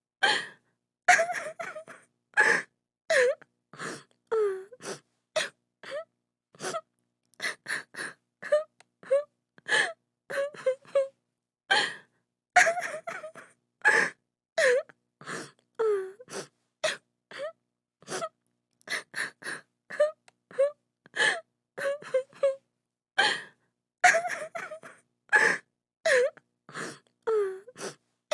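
A woman crying: short gasping sobs and wailing cries, one every half second to a second, some sliding down in pitch, with dead silence between them.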